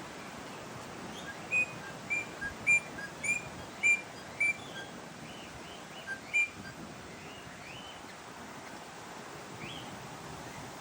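Eastern rosella calling: a run of short, sharp piping notes about half a second apart, then one more a couple of seconds later, with fainter rising notes in between, over steady outdoor background noise.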